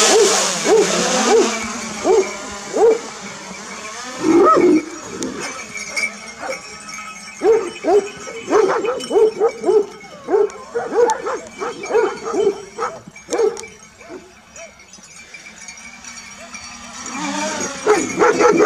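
Kangal shepherd dogs barking over and over in quick runs of deep barks, thickest in the middle, with one longer, rising-and-falling call about four seconds in. The steady whine of a small drone's rotors runs under the barking, loudest at the start and again near the end as it comes close.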